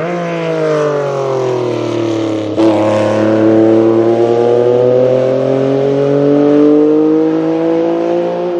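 Porsche 956 Group C race car's twin-turbo 2.65-litre flat-six going past on a wet track. The engine note falls as the car slows, breaks sharply about two and a half seconds in, then climbs steadily as it accelerates away, and it drops off right at the end.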